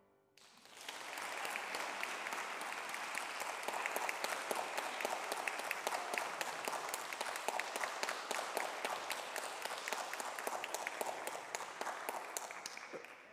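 Congregation applauding: many hands clapping, starting about half a second in and fading out near the end.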